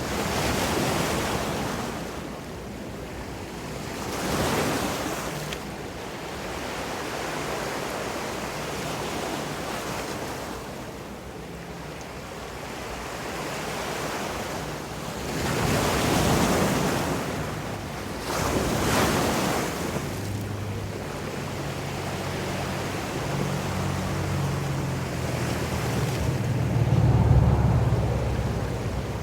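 Ocean surf washing onto the shore, swelling and fading in about five louder surges. A low hum joins in over the last third.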